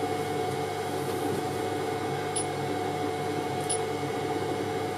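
Biqu B1 3D printer's cooling fans running while it idles: a steady hum with a few steady tones over it. The noise comes mostly from the really noisy fan built into the base, presumably the power supply's, which stays on even at idle.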